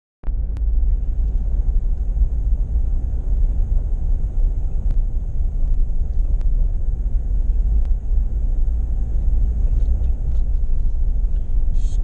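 Steady low rumble of a car driving on a paved road, heard from inside the cabin, with a few faint ticks.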